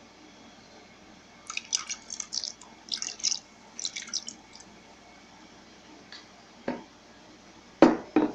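Liquid in a slow cooker's crock bubbling and popping in three short crackly spells of quick ticks, followed by three dull knocks near the end, the last two the loudest.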